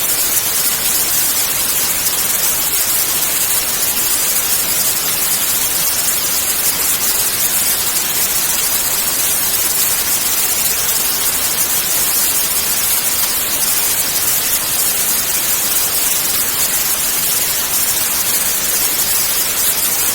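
White noise: a steady, even hiss, brightest in the treble.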